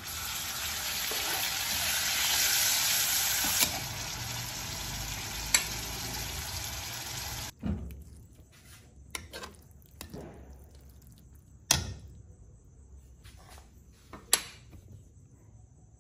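Tomatoes sizzling in hot oil in a wok as a metal spatula stirs them, with a couple of sharp clicks of the spatula on the pan. The sizzle cuts off suddenly about seven and a half seconds in; after that there are only scattered spatula knocks against the wok over a faint background as the small fish are stirred.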